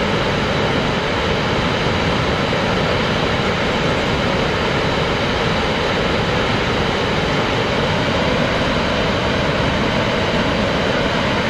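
Steady rushing of a large waterfall, Snoqualmie Falls, an even unbroken noise with no change.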